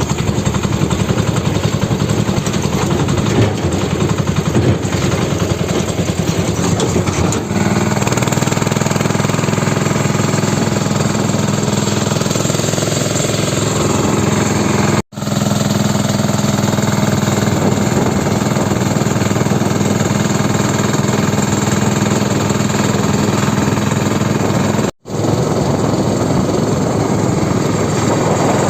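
Sanedo, a home-built farm machine, with its engine running steadily and loudly while sowing, a fast low thudding beat; the engine note changes about a quarter of the way in. The sound cuts out for an instant twice, at about the middle and near the end.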